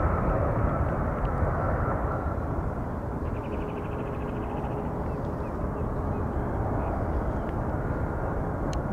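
Twin-engine Airbus A320-family airliner at takeoff thrust, lifting off and climbing away: a steady jet roar with a faint high whine. It eases slightly over the first few seconds, then holds.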